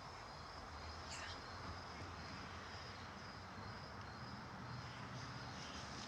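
Faint steady background ambience with a thin high tone, and a tiny tick about a second in.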